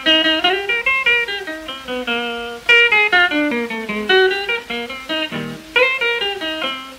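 Blues guitar intro on an old 78 rpm record: quick single-note plucked runs, several notes a second, with faint record hiss underneath.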